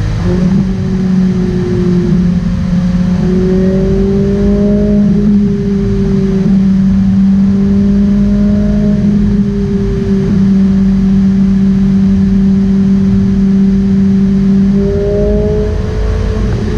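Ferrari 458 Italia's V8 engine running steadily at highway cruising speed, heard from inside the cabin over low road noise, its pitch shifting slightly a few times.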